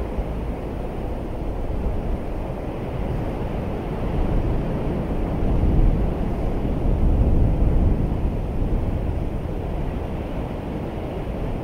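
Low, steady rush of sea surf, swelling a little in the middle and easing again.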